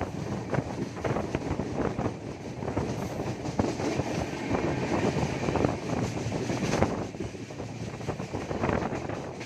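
Superfast express passenger train running past, a steady rumble of coaches with irregular sharp knocks from the wheels on the track.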